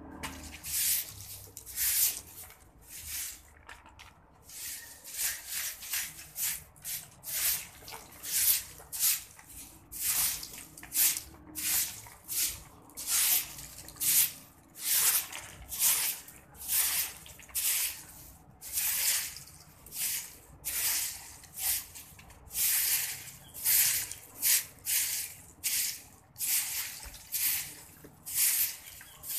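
A short-handled bristle broom sweeping a concrete floor in repeated swishing strokes, about one a second or a little faster.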